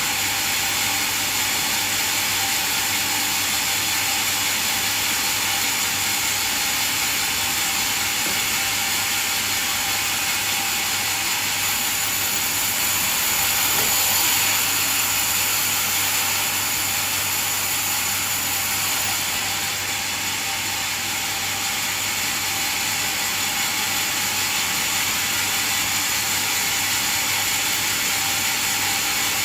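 Bandsaw sawmill machine running steadily: a high, even rushing noise over a low hum, a little louder about halfway through.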